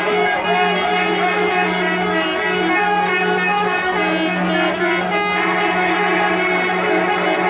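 Continuous music: a held low drone under changing melody lines, with a shift in the melody a little past five seconds in.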